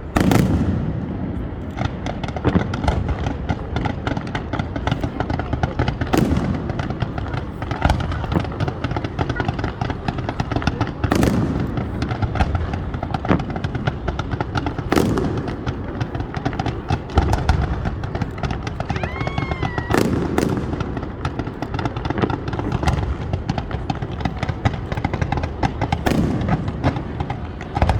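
Fireworks going off without pause: dense crackling and popping, with a sharp bang standing out every few seconds. A brief pitched whistle rises and falls about two-thirds of the way through.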